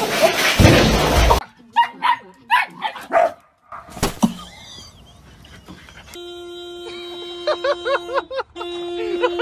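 A brief burst of loud noise, then a run of short high yips from a dog. From about six seconds in, a Renault vehicle's horn sounds in a long steady tone, pressed by a dog standing on the steering wheel. The horn breaks off briefly near the end, and quick short yelps sound over it.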